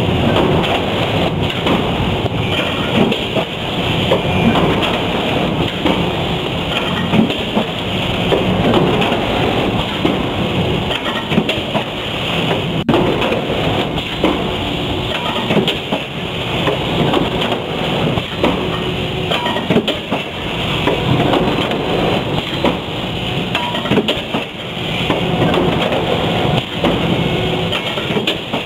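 Factory production-line machinery running, a loud continuous clatter with frequent irregular knocks and bangs of metal parts.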